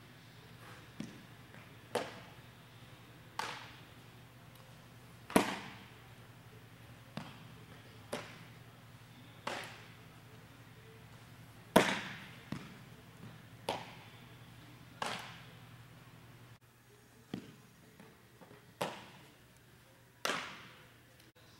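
Sharp cracks of baseballs striking gloves or bats, about one every second or two, each ringing out in the echo of a large indoor hall; two, about five and twelve seconds in, are much louder than the rest.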